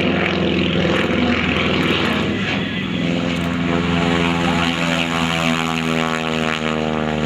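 Stearman PT-17 biplane's seven-cylinder Continental radial engine and propeller running steadily on a low pass. About three seconds in, the drone settles into a clearer, more even note.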